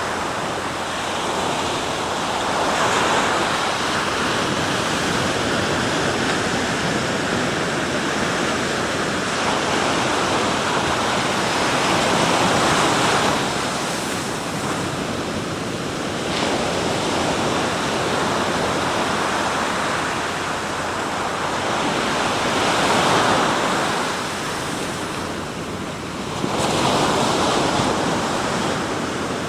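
Sea waves breaking and washing up the shore: a continuous rushing surf that swells and ebbs as each wave comes in, with louder surges every several seconds.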